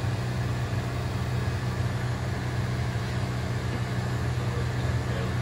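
Corded electric hair clippers buzzing steadily with a low hum as they trim a toddler's hairline.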